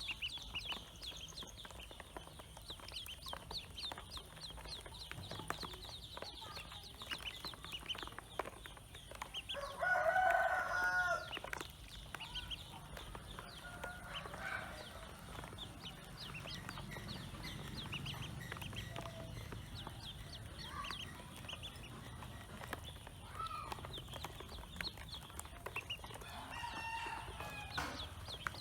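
Pekin ducklings peeping in a rapid, continuous chatter of short high notes. A louder, lower fowl call breaks in about ten seconds in, and a fainter one comes near the end.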